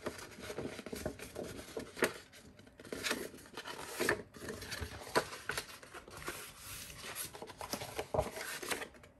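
A printed A4 paper sheet being folded along its scored creases and handled, rustling, with a few sharper crackles.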